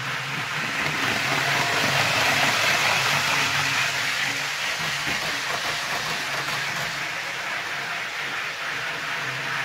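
Hornby OO gauge Class 800 model train running at top speed round the track: a continuous rushing rattle of wheels and motor, growing louder about two seconds in and then easing a little.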